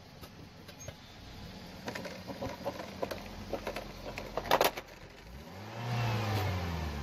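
Car engine running while the car rolls slowly on asphalt, with scattered clicks and crackles and a brief loud burst of crackling about four and a half seconds in. Near the end the engine note swings down and back up in pitch.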